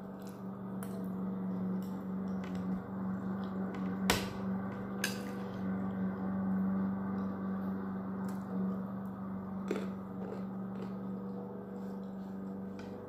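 Eating sounds: a metal spoon and fork clinking now and then against a plate, with a few sharp clicks about four and five seconds in, and chewing. A steady low machine hum runs underneath.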